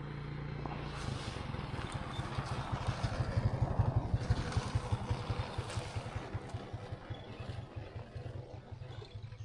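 A motor vehicle passing by: its engine's rapid low pulsing grows to its loudest about four seconds in, then fades away.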